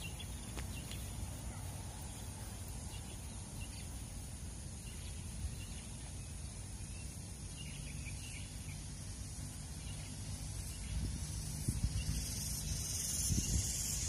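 Outdoor field ambience: a steady low rumble of wind on the microphone with faint, scattered bird chirps. A high hiss grows stronger about eleven seconds in, with a few low thumps near the end.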